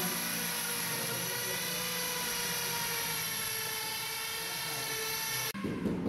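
Steady whining hum of a motor-driven machine, its pitch held almost constant. It cuts off abruptly half a second before the end, and a rougher noise takes over.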